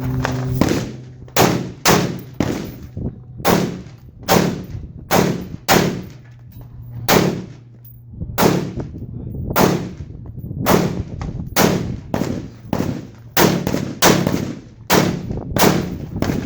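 Custom Colt AR-15 rifle firing a long string of shots during a practical-shooting stage, many of them in quick pairs with short breaks between groups.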